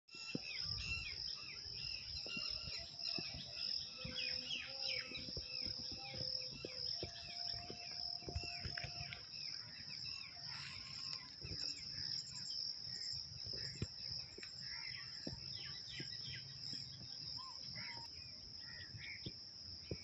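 An insect's steady, shrill, high-pitched drone with birds chirping over it again and again, busiest in the first half. A low rumble runs underneath.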